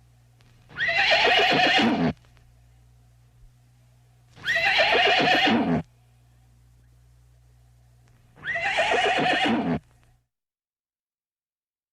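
A horse whinnying three times, about every four seconds, each call about a second and a half long and falling in pitch.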